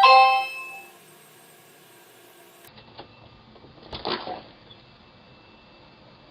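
Two-tone doorbell chime ringing out and fading over about a second. A few seconds later come a faint click and a brief rustling clatter.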